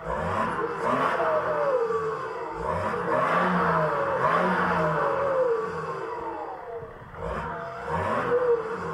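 BMW E60 530d's 3.0-litre straight-six turbodiesel, heard through a straight-through exhaust with no catalytic converter, DPF or silencers. It is revved up and let fall back several times, each rev a rising then falling pitch.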